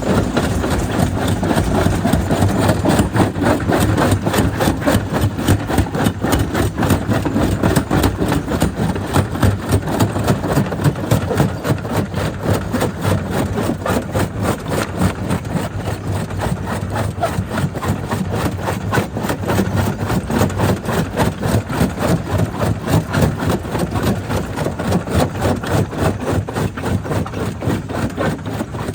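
Jaw crusher running with a steady heavy drone and a fast, continuous knocking of stone being broken between its jaws.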